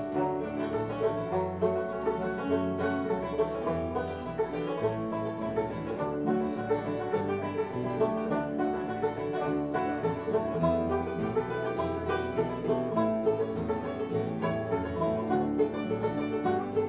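Bluegrass band playing an instrumental break: banjo picking over strummed acoustic guitars, with no singing.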